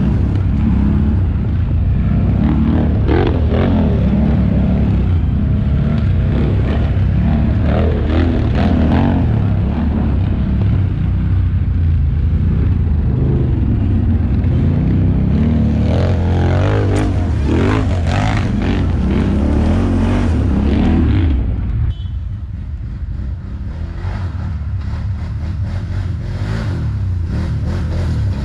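ATV engine running and revving up and down over a rough forest trail, heard up close from the rider's seat. About 22 s in it cuts to a quieter, more distant ATV engine that grows louder as the quad approaches.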